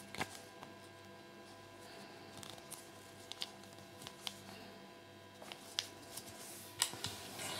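Small plastic Kinder Surprise toy parts being handled and snapped together by gloved fingers: a few sharp plastic clicks spread through, with the loudest click and a brief scuffle near the end.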